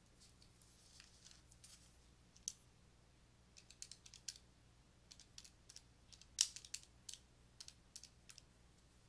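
Faint scratching of a stylus writing on a drawing tablet, then a string of soft, irregular clicks and taps, the sharpest about six and a half seconds in.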